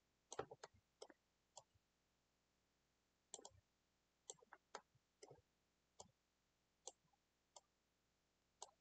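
Computer mouse buttons clicking, about a dozen sharp clicks at irregular intervals, several in quick press-and-release pairs, against near silence.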